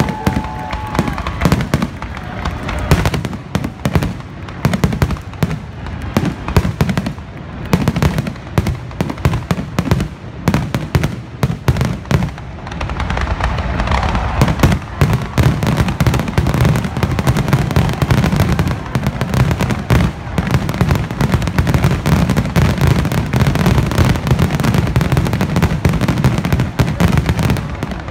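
Fireworks grand finale: aerial shells launching and bursting in a rapid barrage of booms and crackles, becoming denser and almost continuous about halfway through.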